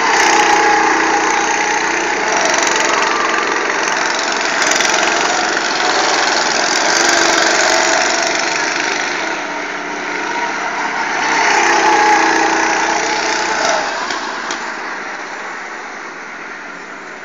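Go-kart engines running as several karts drive round the track. The sound swells as karts pass close near the start, about seven seconds in and about twelve seconds in, then fades toward the end.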